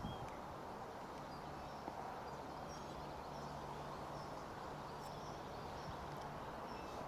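Outdoor background noise with a steady low rumble and scattered short, high bird chirps.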